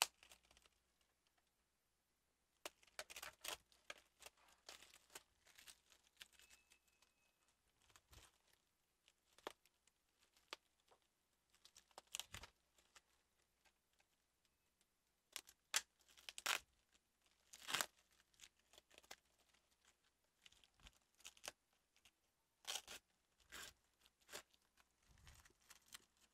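Plastic packaging wrap being crinkled and torn open by hand, in short scattered rustles with quiet gaps between.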